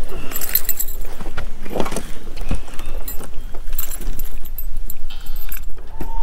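A small bass being swung aboard and unhooked by hand: a run of irregular clicks, rattles and light metallic jingling from the handled fish, line and lure hardware.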